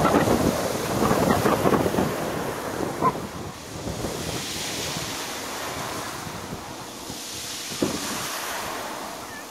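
Surf washing onto a stony beach, with wind buffeting the microphone. Crackling crunch of stones in the first couple of seconds, then a wave swells in and fades, with a couple of single clicks of stone.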